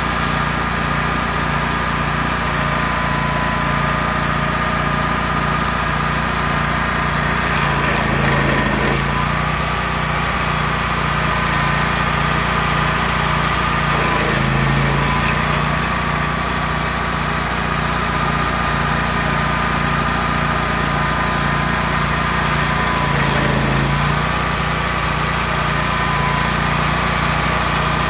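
Rayco RG 1625 stump grinder's gasoline engine running steadily at speed, its pitch sagging briefly about three times.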